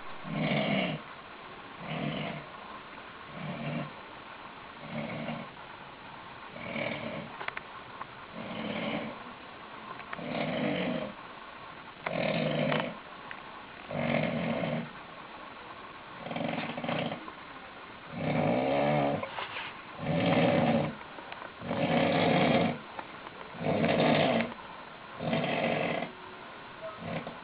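A man snoring heavily while sleeping off a night of drinking: a snore about every two seconds, getting louder and longer in the second half.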